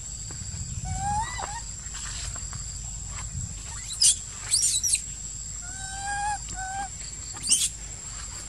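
Macaques calling: short tonal coos about a second in and again around six seconds, and sharp high-pitched squeals about four seconds in and near the end, which are the loudest sounds. A steady high whine runs underneath.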